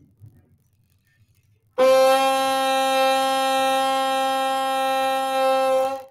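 Bassoon reed on its bocal, blown without the instrument as one steady, reedy held note that starts abruptly about two seconds in, lasts about four seconds and stops cleanly. The pitch holds steady throughout.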